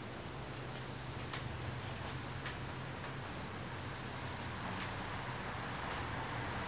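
A cricket chirping steadily outdoors, a short high chirp about every half second, over a constant hiss and a low hum.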